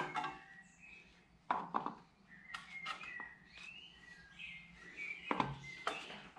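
A gloved hand wiping down an engine's flywheel: soft rubbing with a few light knocks, the sharpest about one and a half seconds in and again near the end. Birds chirp in the background.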